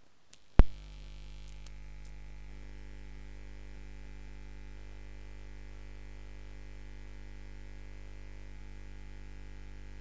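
A sharp electrical pop about half a second in as the commentary sound channel switches on, followed by a steady mains hum and buzz.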